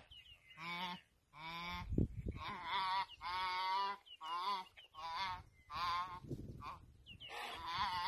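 A young antelope fawn bleating over and over, about nine short, wavering distress calls while a leopard has it in its jaws. There is a brief low thump about two seconds in.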